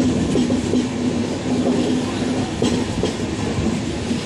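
Passenger train running on the rails: a steady rumble with a low hum and a few sharp wheel clacks over rail joints.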